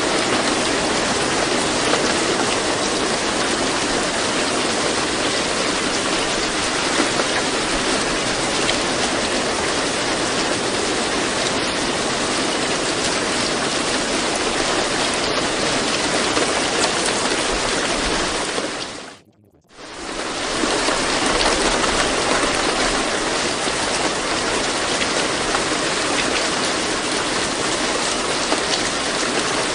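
Steady rain sound, an even hiss of falling rain. About nineteen seconds in it fades out to near silence for about a second, then fades back in.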